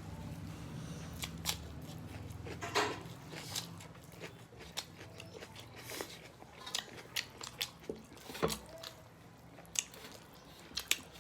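Close-up eating sounds: chewing and crunching food with irregular sharp mouth clicks and smacks. A low hum underneath fades out after about three seconds.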